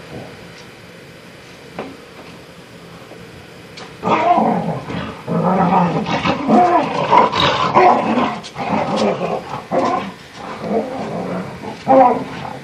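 Two dogs play-fighting and growling. The growling starts about four seconds in and goes on in rough, overlapping spells, with a short louder burst near the end.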